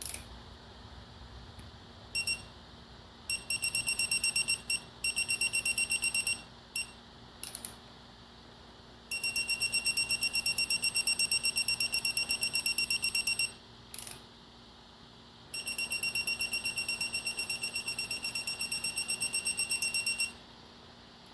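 Electronic torque wrench beeping as cover bolts are brought up to its set torque of 15 ft-lb: a high electronic beep, some single short beeps and several long runs of rapid pulsing beeps, the longest about four seconds.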